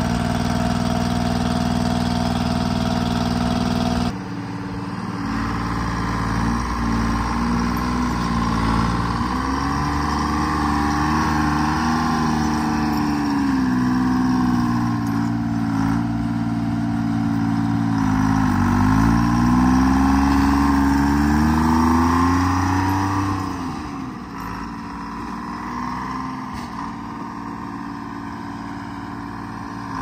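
Timberjack 230 skidder's Detroit Diesel two-stroke engine running: steady at first, then after an abrupt break about four seconds in the revs rise and fall again and again as the skidder plows snow with its blade, a little quieter in the last few seconds.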